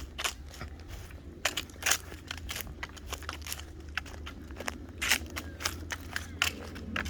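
Footsteps crunching on a dry hiking trail at a walking pace, an irregular series of short crunches, over a steady low rumble.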